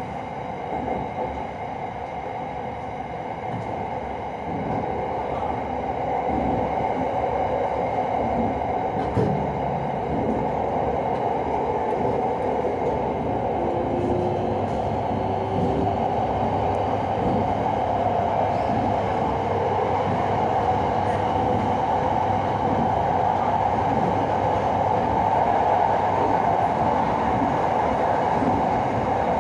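Interior of an SRT Red Line electric commuter train running on an elevated track: a steady rumble of wheels and running gear with a low hum, growing louder over the first several seconds. A faint rising whine comes in about halfway through.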